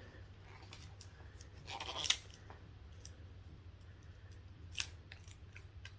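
Scattered light clicks and a brief rustle from a small cosmetic product and its packaging being handled, with one sharper click near the end.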